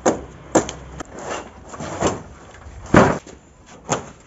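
A chisel jabbed into a cardboard carton and its plastic strapping on a wooden bench: a string of sharp knocks and cracks, about six in four seconds, the loudest about three seconds in.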